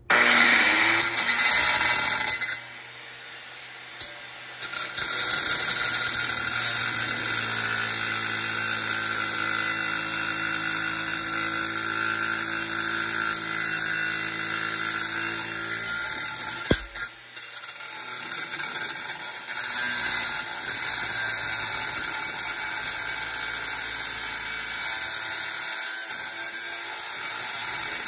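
Angle grinder cutting into the metal housing of a small compressor to open it, running steadily with a shrill hiss. It lets up briefly about two seconds in and again around seventeen seconds, then bites back in.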